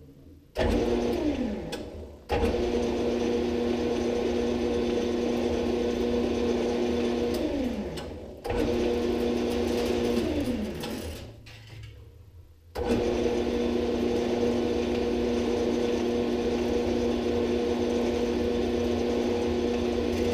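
Metal lathe spindle running, turning a rod that winds stripped copper motor wire onto itself. It is switched on four times. Each run is a steady whine, and each of the first three falls in pitch as the lathe coasts to a stop.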